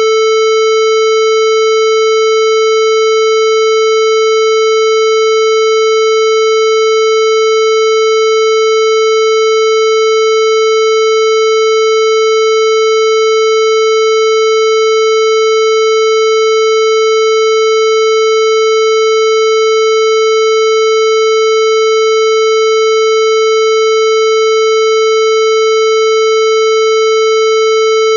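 Vocoded electronic sound effect: a single loud, steady tone held at one unchanging pitch, with no breaks or variation.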